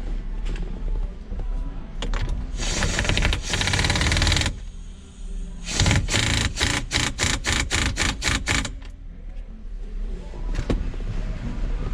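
Cordless impact wrench running the steering wheel's 24 mm center nut: a rattling burst of about two seconds, then after a short pause a quick run of about ten short pulses.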